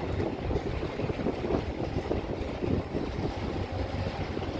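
Wind buffeting the microphone in uneven gusts over a low rumble.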